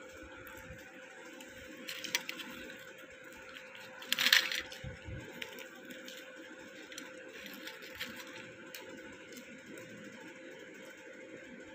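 A crisp deep-fried snack being broken apart by hand: one short crackling tear about four seconds in, with a few fainter crackles, over a faint steady hum.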